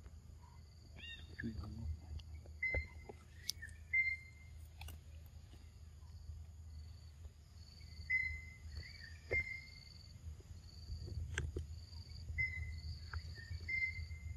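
Outdoor ambience: a steady high-pitched insect drone, with groups of short chirping bird calls every four to five seconds and a few sharp clicks.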